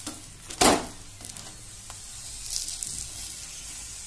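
Stuffed paratha cooking in oil on a hot non-stick tawa, worked with a metal spatula. There is a short loud scrape about half a second in, then a soft sizzle, with a brief hiss near three seconds.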